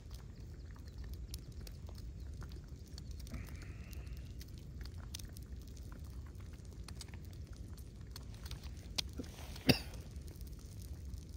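Wind rumbling on the microphone, with scattered small clicks and taps of camp cooking gear being handled and one sharp knock near the end.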